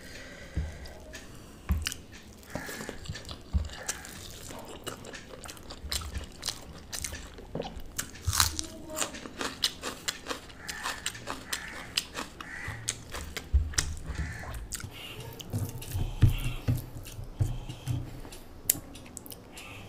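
Close-miked eating sounds: chewing and biting with repeated crunches and wet mouth clicks, along with fingers squishing and mixing rice.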